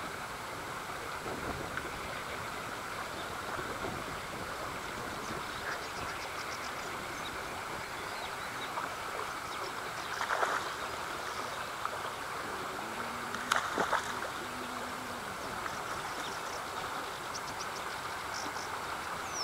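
Steady rushing outdoor noise of wind and water at the pond's edge, with two brief louder sounds about ten and fourteen seconds in.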